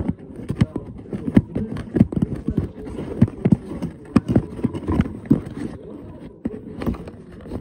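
Hands working a toy out of its packaging: a run of irregular knocks, clicks and rustles as the box and toy are pulled and pushed about.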